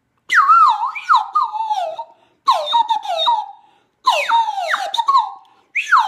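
Large bass-size plastic bird whistle blown in four bursts of chirps. Each burst is a quick run of warbling notes that swoop downward in pitch, and the last burst runs on past the end.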